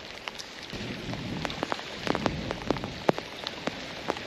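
Rain falling steadily in a hiss, with many single drops ticking sharply close to the microphone. A low rumble swells under it from about a second in.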